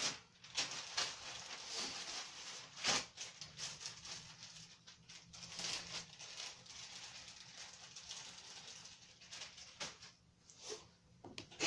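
Someone rummaging through small plastic toy accessories: faint rustling with a few sharp clicks and knocks, one about three seconds in and another near the end.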